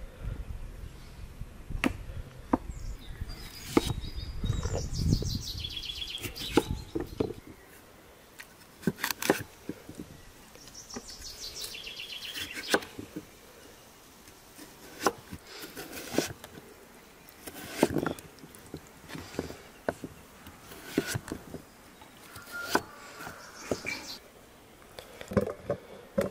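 Scattered light knocks and clicks from cooking work, with a bird trilling twice, each trill a quick run of high notes falling in pitch.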